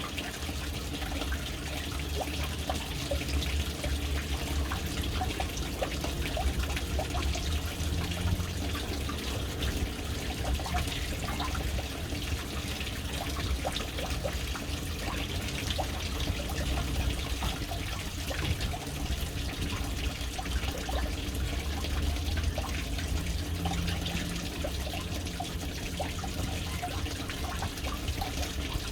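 Water falling into a household water tank: a steady splashing trickle with a low rumble underneath, unchanging throughout.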